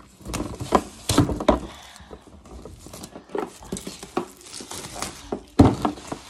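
A cardboard board-game box being handled and opened, with plastic wrap rustling and crinkling and scattered knocks and clatters. The loudest knock comes about five and a half seconds in.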